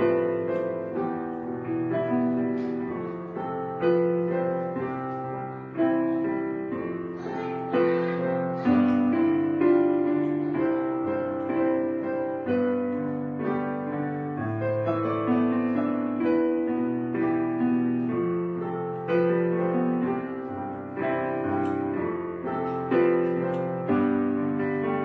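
Background piano music: chords struck every second or two and left to ring.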